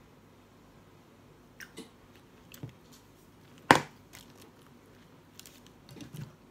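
Person chewing a mouthful of cheeseburger with the mouth open: scattered wet mouth clicks and smacks starting about a second and a half in, with one sharp click a little past halfway much louder than the rest.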